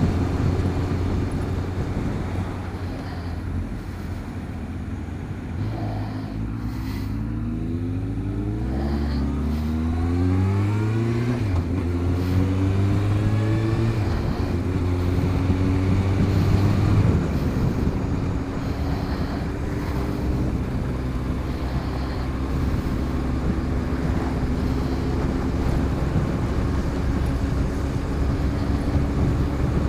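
Motorcycle engine running under way, heard from the rider's seat: it eases off about four seconds in, rises in pitch as it speeds up over the next several seconds, then runs steadily.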